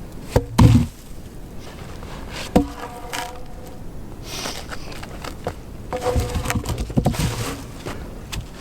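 A few heavy knocks and thumps: a loud one about half a second in, another about two and a half seconds in, and a cluster near the end, with a short buzzing tone after the second knock and again near the end.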